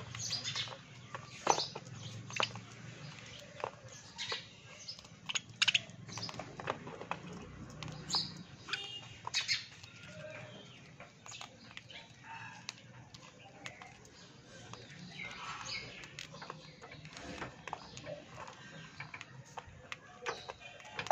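Two budgerigars nibbling and biting a biscuit with their beaks: irregular small cracks and clicks of the biscuit breaking, with a few short budgie chirps now and then.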